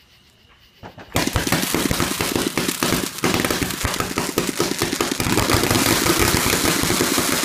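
A 500-shot firework cake firing: after about a second of quiet it bursts into a rapid, continuous stream of small shots and crackling.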